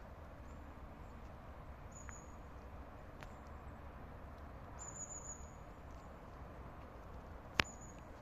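Outdoor nature ambience: a steady low hiss with a few short, high chirps from small creatures, and one sharp click near the end.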